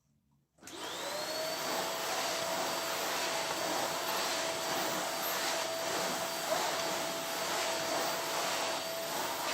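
Eureka compact bagless vacuum cleaner switching on about half a second in. Its motor whine rises quickly and then settles into a steady run.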